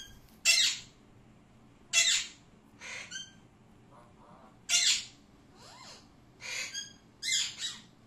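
Alexandrine parakeets squawking: short harsh calls, four loud ones about two seconds apart with quieter calls between.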